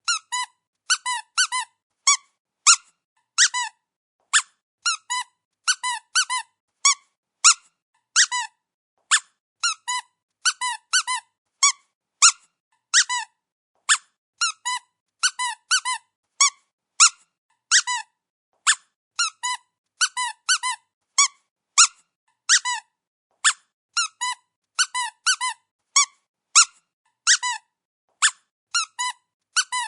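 Rubber squeaky dog toy squeezed again and again, each squeeze giving a short high squeak, often in quick pairs or threes: a sharp squeak as it is pressed and a lower one as it springs back.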